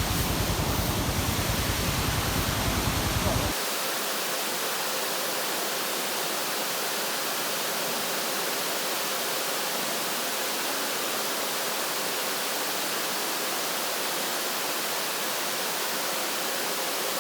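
Steady rushing hiss of water. For the first three and a half seconds a low rumble runs under it, then stops abruptly, leaving the even hiss.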